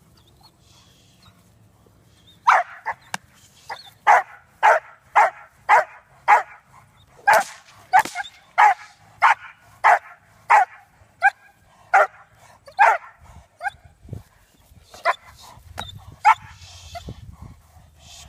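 A dog barking repeatedly at a decoy holding a bite sleeve during bite training. Sharp barks start a couple of seconds in, come about twice a second through the middle, then grow sparser in the last few seconds.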